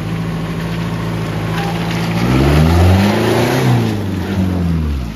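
Toyota Hilux SW4 engine pulling through a muddy rut and passing close by, steady at first, then revving higher about two seconds in and falling in pitch as it goes past. Tyres churn and spray mud while it passes.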